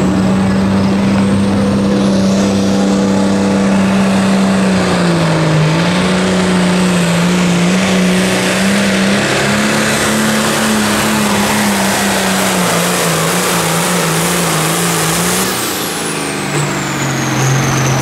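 John Deere 4255 hot farm tractor's diesel engine running flat out as it pulls a weight-transfer sled, its pitch wavering as it works under the load. About three-quarters of the way through the throttle comes off: the engine drops to a lower, steady note and a high whine winds down.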